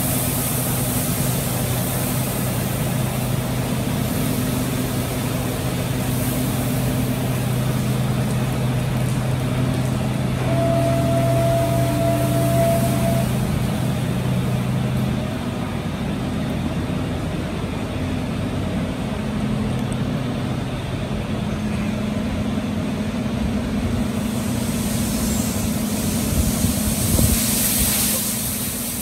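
Semi-tractor's diesel engine running low and steady as the truck is driven slowly through a truck wash, with a hiss near the start and again near the end.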